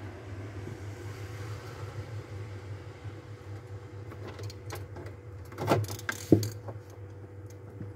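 Hands handling and twisting refrigerator wiring, with a few sharp clicks and crinkles around five to six seconds in as the foil-wrapped bimetal defrost thermostat is picked up. A steady low hum runs underneath.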